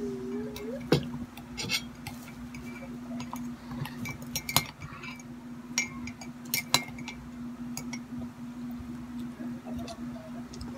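Metal spoon and fork clinking against a ceramic mug and a plate, a dozen or so sharp clinks at uneven intervals, over a steady low hum.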